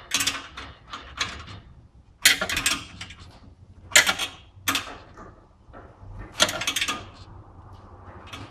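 Six or so short bursts of metal clanking and rattling from hands-on work on a car's exhaust pipe and hangers, a second or so apart.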